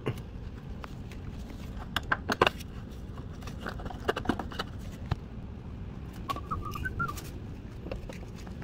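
Scattered light clicks and knocks of hands and parts being handled, over a steady low hum. A short run of high chirps comes about six and a half seconds in.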